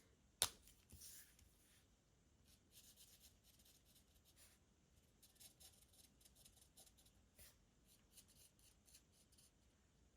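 Faint, quick scratching strokes of an alcohol-ink blending marker (Stampin' Blends) colouring on cardstock, after a single sharp click about half a second in.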